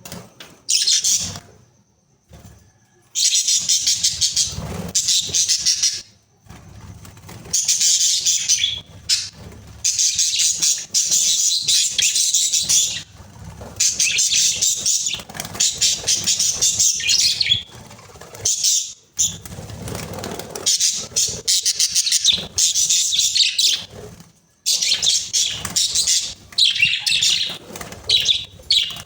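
Budgerigars chattering and warbling: long runs of rapid, high chirps broken by short pauses.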